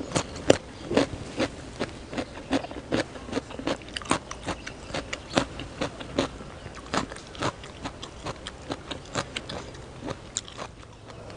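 A person chewing food close to the microphone, making sharp, wet smacking clicks about three times a second. The clicks fade out shortly before the end.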